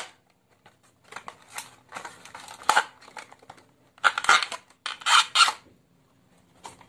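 A hard clear-plastic earphone case being handled and pried open by hand, crinkling and clicking in several irregular bursts, the loudest about four to five seconds in.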